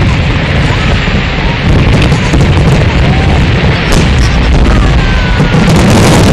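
Fireworks display: many aerial shells bursting in quick succession, blending into a continuous rumble of booms with sharper cracks, loud throughout.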